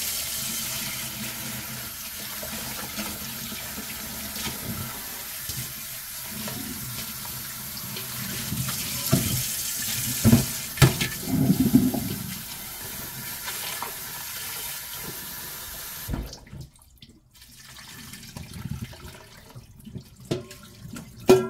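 A kitchen tap runs in a steady hiss into a stainless steel sink while green laver seaweed is rinsed, with a few knocks of metal near the middle. The running water stops about three quarters of the way through, and quieter splashing and handling of the seaweed in a plastic strainer follow.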